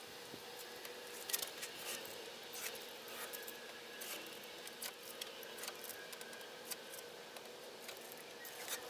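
Blue masking tape being peeled off a truck's bumper: faint, irregular short crackles and rips as it comes away.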